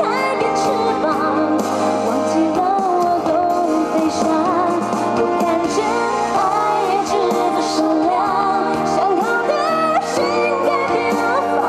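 Live pop music over a stadium sound system: a female singer's voice with full band backing, steady and unbroken.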